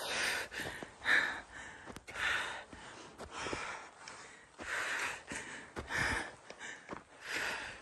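A climber's heavy, hard breathing from exertion at high altitude: a noisy breath about once a second, steady and regular.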